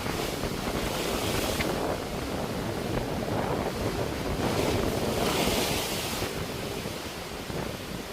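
Sea waves breaking and washing up the shore, with the hiss of the surf swelling twice, the second swell the loudest. A low rumble of wind buffets the microphone throughout.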